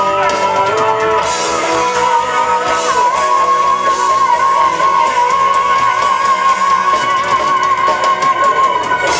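Live rock band playing loud through a PA: electric guitars, drums and a singer. From about three seconds in, one long note is held with a wavering vibrato over the band.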